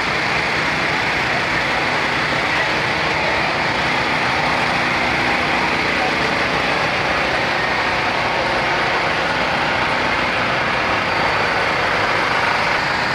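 Engine running steadily with a constant hum, amid the murmur of a walking crowd.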